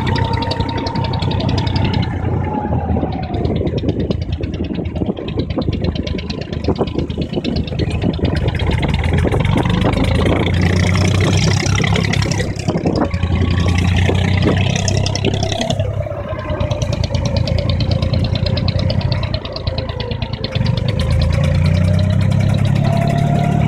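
Engine of an abra, a wooden Dubai Creek water taxi, running steadily underway. The engine note dips briefly and picks up again near the end as the boat comes in to the landing.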